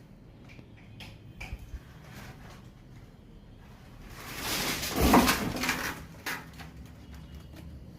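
Handling noises from a refrigerator being installed: scattered light knocks and clicks, then a rushing swell that ends in a loud thump about five seconds in, followed by a few more knocks.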